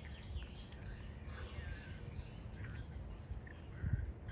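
Outdoor ambience: a steady, high-pitched insect drone, with a few faint bird chirps and low wind rumble on the microphone.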